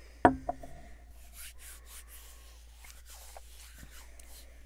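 A stemmed whisky tasting glass set down on a wooden tabletop: a sharp knock with a brief ring, then a lighter second tap. After it come faint mouth and lip sounds as the whisky is held and tasted.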